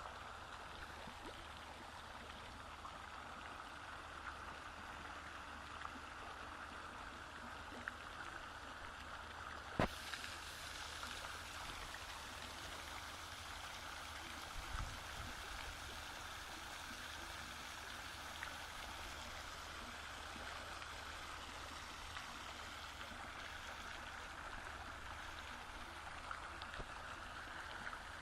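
Steady running water, an even trickling noise. One sharp click about ten seconds in and a short dull thud a few seconds later.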